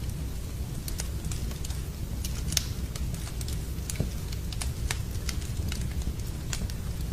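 Wood fire burning in a fireplace: a steady low rumble of the flames with sharp, irregular crackles and pops, the loudest about two and a half seconds in and another at four seconds.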